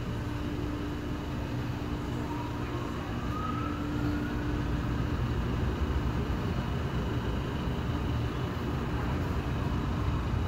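Automatic car wash tunnel heard from inside the car: a steady rush of water spray and wash machinery that grows a little louder about four seconds in.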